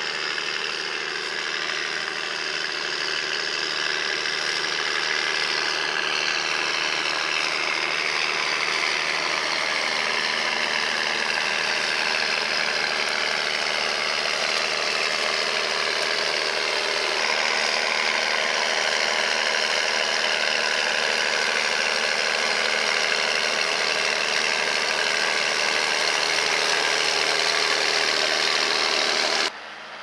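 Massey Ferguson 8480 tractor's straight-piped six-cylinder diesel running hard under load while pulling a six-furrow mounted plough, a loud steady drone whose pitch drifts slowly. It cuts off suddenly near the end.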